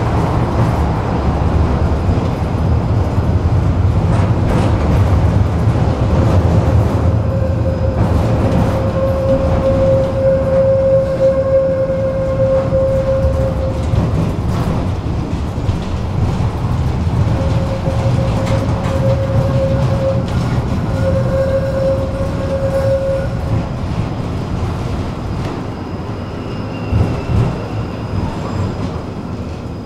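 Tram running along its track: a steady low rumble of wheels on rails, with a high steady whine held for several seconds twice in the middle, and the sound easing off a little toward the end.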